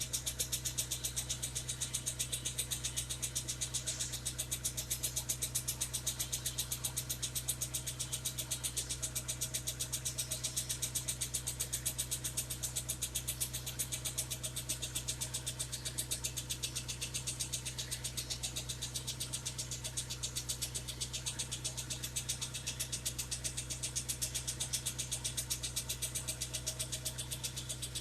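Car engine idling with a rapid, even ticking knock riding over a steady low hum, the kind of engine knock that points to an internal mechanical fault.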